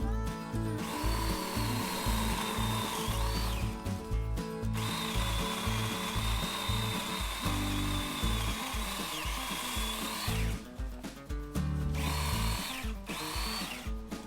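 Battery-powered Yatiddy mini chainsaw running in three cutting bursts, a high electric whine that rises in pitch just before each stop. Background music plays underneath.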